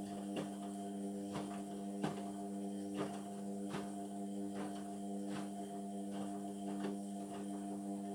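Indesit washing machine running mid-cycle on a synthetics programme: a steady electrical hum with irregular light knocks and clicks from the drum and load.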